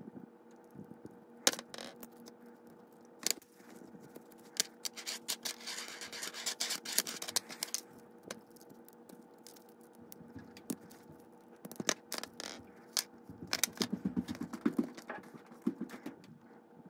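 Small plastic and metal parts of an Athearn Blue Box model locomotive truck being unscrewed and pulled apart by hand with a small screwdriver: scattered sharp clicks and light scraping, busiest a third of the way in. A faint steady hum runs underneath.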